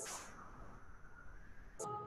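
Faint room tone during a pause in the spoken instructions, with a short click or breath and the instructor's voice starting again near the end.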